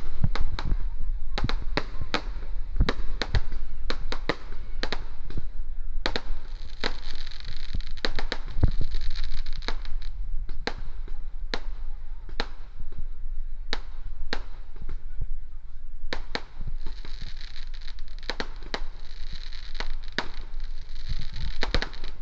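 Fireworks going off: a long, irregular series of sharp bangs, several a second, with a hissing spray between them in two stretches.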